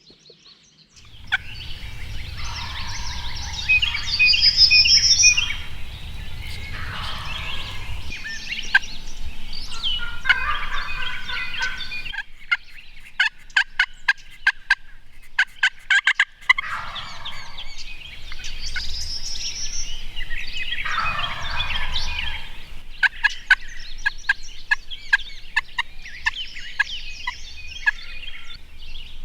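Several wild turkey toms gobbling close by, their rolling gobbles overlapping in bouts, with trains of short sharp clicking notes in between.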